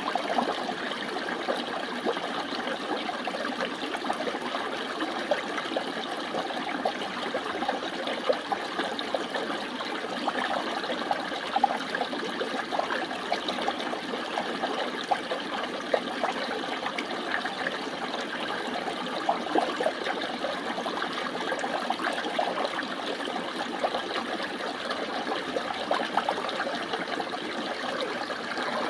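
Water flowing steadily with a bubbling, splashing sound and many small droplet splashes throughout.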